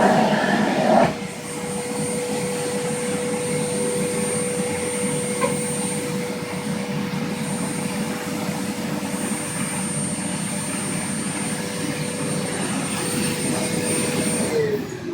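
Household vacuum cleaner running with a steady whine, louder for about the first second. Near the end it is switched off and its motor winds down, the whine falling in pitch.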